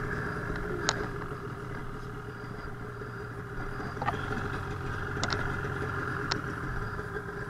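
Snowmobile engine idling steadily, with a few short sharp clicks scattered through it.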